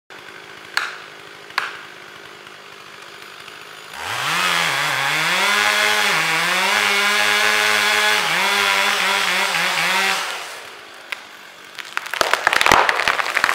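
Chainsaw idling, then revving up at about four seconds and running under load with its pitch wavering for about six seconds as it cuts into a standing tree trunk, before dropping back to idle. Near the end comes a rapid burst of cracking and snapping wood as the tree gives way and falls.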